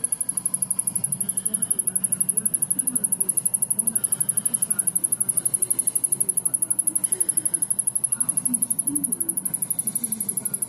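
Samsung rear-projection CRT television's power supply ticking rapidly and evenly, several high-pitched ticks a second: the owner takes it for something shorting out inside the set, with no internal fuse blown.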